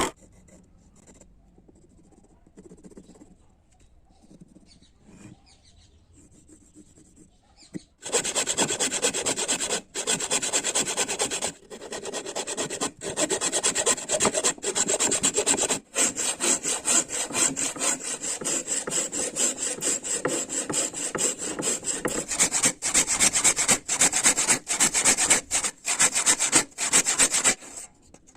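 A rasp or file worked over wood in long rough strokes, with brief breaks between them. It starts about eight seconds in, after a quiet stretch of faint handling sounds.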